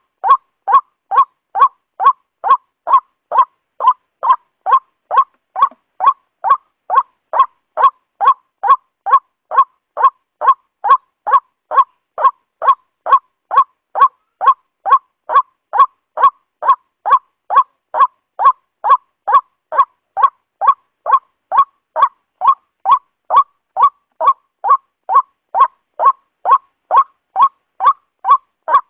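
Waterhen call: a short note centred near 1 kHz, repeated with machine-like evenness about twice a second, a looped recording of the bird's call.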